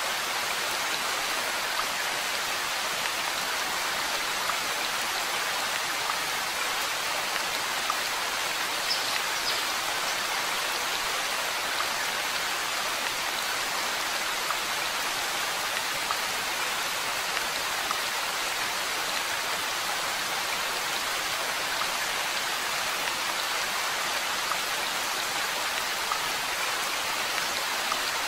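Steady rain: an even hiss with a few faint drop ticks, unchanging throughout.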